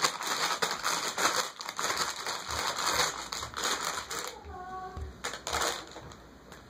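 Dense, rapid crinkling and crackling, made on purpose as an annoying noise, with a short high-pitched tone about four and a half seconds in.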